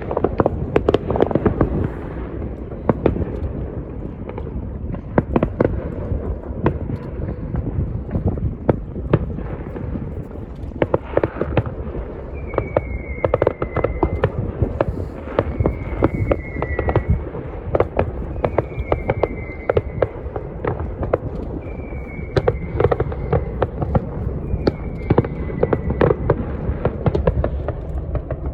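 Fireworks going off in rapid succession: many sharp bangs and crackles over a continuous low rumble. From about halfway, a short falling whistle-like tone recurs about every three seconds.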